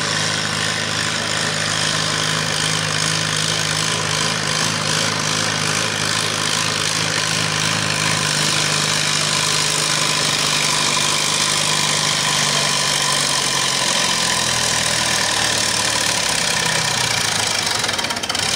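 A classic Farmall tractor engine running hard under load as the tractor pulls a weight-transfer sled down the track, at a loud, steady level.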